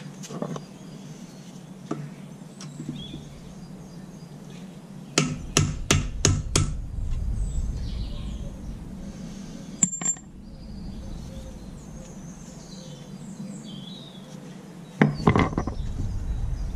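Hammer striking the rusty metal trolley frame with sharp, ringing metallic blows: five quick strikes about five seconds in, a single strike around ten seconds, and another burst of blows near the end.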